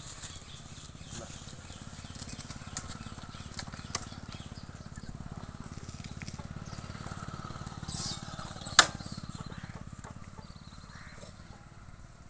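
Outdoor ambience: a steady low rumble with scattered rustles and light clicks, a brief burst of rustling about eight seconds in, and one sharp click just after it.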